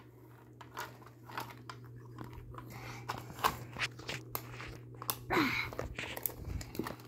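Irregular small clicks, crackles and crunches of close handling: plastic toy parts and fingers working right by the phone's microphone, over a steady low hum.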